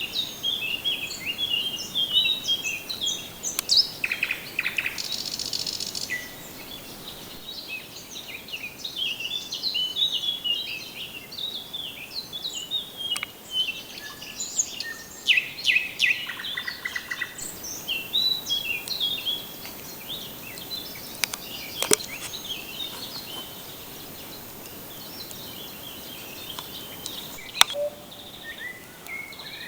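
Forest songbirds singing: a dense run of quick chirps and trills, thinning out for a few seconds in the later part. Two sharp clicks come in the second half.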